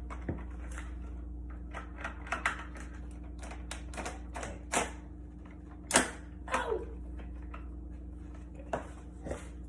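Irregular clicks and knocks from the parts of a Hoover PowerDash carpet cleaner being handled and fitted together during assembly, the loudest about six seconds in, over a steady low hum.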